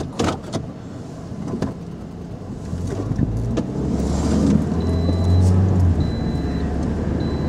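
Car driving, with engine and road rumble building louder as it gets under way. From about five seconds in, a short high-pitched beep repeats about once a second.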